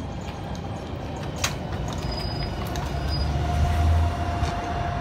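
LiAZ-4292 city bus drawing up to a stop, its engine running with a low rumble that swells about three and a half seconds in. A single click comes about a second and a half in, and a steady whine joins about three seconds in.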